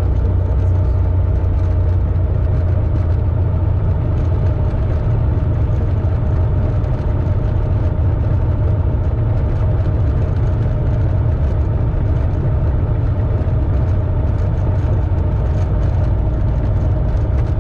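Single-engine piston propeller aircraft running steadily at low power while taxiing, heard from inside the cockpit as a deep, even drone.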